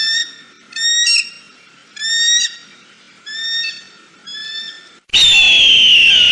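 Eagle calling: five short high notes, each rising slightly, spaced about a second apart and growing fainter, then about five seconds in a long, louder scream that falls slightly in pitch.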